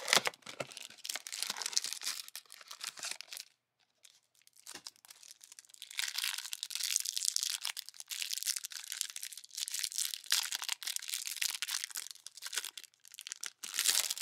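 Topps 2024 Series 1 hanger box being torn open, its cardboard ripping and rustling, then the clear plastic wrap around the card stack crinkling and tearing as it is peeled off.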